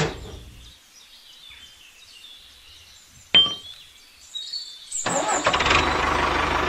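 A sharp plastic click about three seconds in as the toy trolley's hitch is handled, then from about five seconds a steady, dense engine-like running sound.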